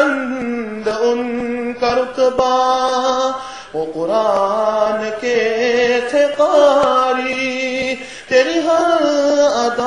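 Singing voice performing an Urdu naat, a devotional poem in praise of the Prophet, in long held, wavering notes with short breaks between phrases.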